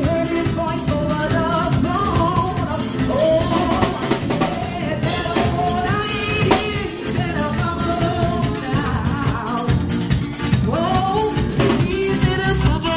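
Live band playing: a woman singing lead into a microphone with backing singers, over a drum kit beat, bass guitar and keyboard.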